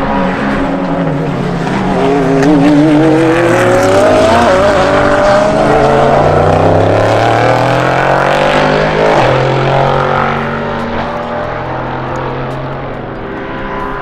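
Time-attack race cars' engines on the circuit, two or more overlapping. One engine note climbs steadily in pitch for several seconds as the car accelerates, while lower engine notes slide and step beneath it.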